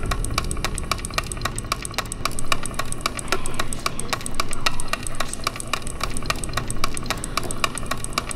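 Suspense film score: a fast, even ticking, several ticks a second, like a clock or wood block, over a low steady drone.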